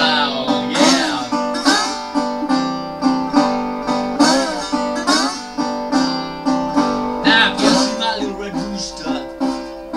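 Metal-bodied resonator guitar played with a slide in a blues, the slide gliding notes up and down over a steady picked rhythm of about two strokes a second.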